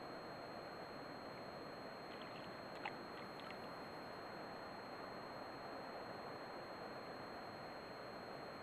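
Faint, steady outdoor wash of wind and small ripples on loch water, with one brief tick about three seconds in.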